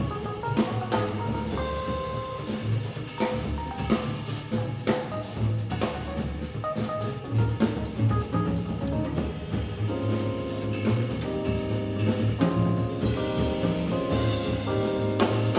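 Live jazz from a small band: grand piano and double bass playing over a drum kit.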